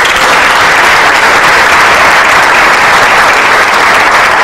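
Audience in a hall applauding, a loud, steady round of clapping.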